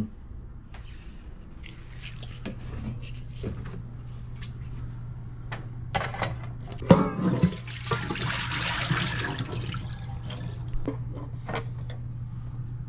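Small handling clicks and a sharp metal clank about seven seconds in as a stainless steel kettle is opened and a plastic egg is put inside, followed by a couple of seconds of rushing noise. A steady low hum runs underneath.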